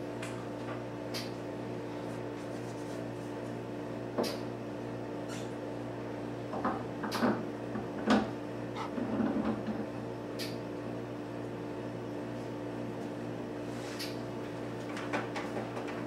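Scattered clicks and knocks of metal parts being handled and fitted on a rose engine's cutter slide, over a steady low hum.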